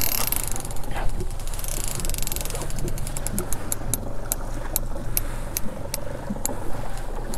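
A trolling fishing reel's ratchet ticking in irregular quick clicks with a fish on the line, over the steady low rumble of the boat running.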